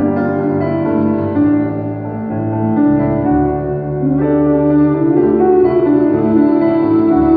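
Live gospel song: an electric keyboard plays sustained chords under a solo singer's held notes.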